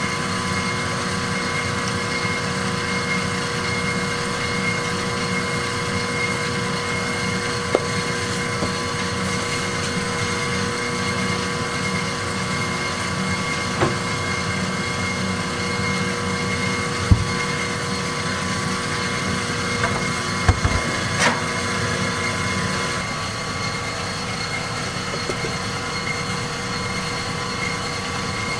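Steady hum of kitchen machinery, a drone holding several fixed tones, with a few light knocks and clinks of utensils and containers on steel now and then.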